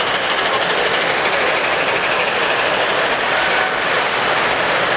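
Steady, loud din of a model railroad show hall: model trains running on layout track amid general hall noise.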